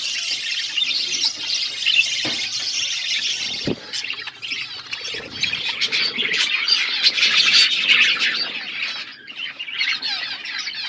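Several budgerigars chirping and chattering, with a dense run of rapid calls and brief lulls. There are a couple of soft knocks about two and four seconds in.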